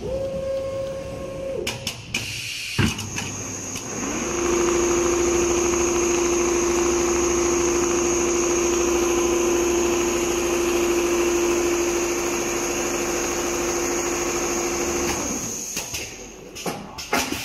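Computerised multi-head leather pattern sewing machine running: a steady whine rises in about four seconds in, holds for about eleven seconds and falls away, with a few sharp mechanical clicks before and after it.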